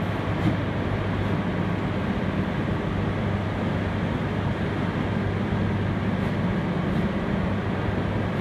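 Fish processing factory machinery running: a steady low hum under a constant mechanical rush.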